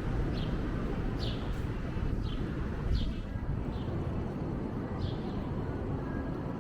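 Wind rumbling on the microphone, with a bird's short falling chirps repeating about once a second.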